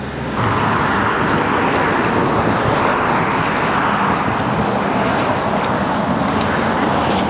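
Craftsman snow blower's 208cc single-cylinder engine running steadily, getting louder about half a second in.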